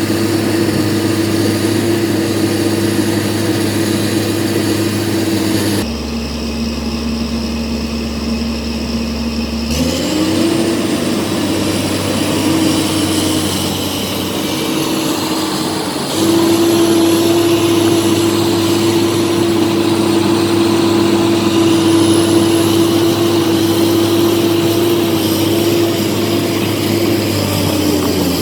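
Komatsu PC200-8 excavator's six-cylinder diesel engine running steadily. About ten seconds in, the pitch rises as the engine speeds up, and it runs louder from about sixteen seconds in.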